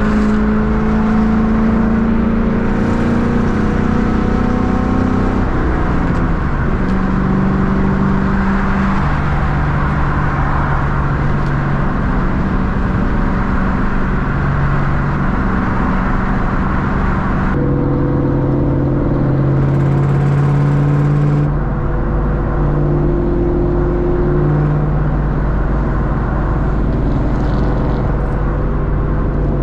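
A 2004 Ford Mustang GT's 4.6-litre V8 running on the move, its engine note stepping up and down in pitch as the revs change, over road noise.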